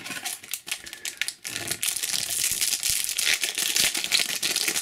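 Foil booster pack of trading cards crinkled and torn open by hand: a dense run of crackling and crinkling that thickens about a second and a half in.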